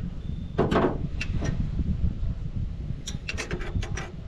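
Hand tools clinking and clicking against metal while a woodchipper's governor belt is tightened, with one heavier knock under a second in and a quick run of sharp clicks near the end, over a steady low rumble.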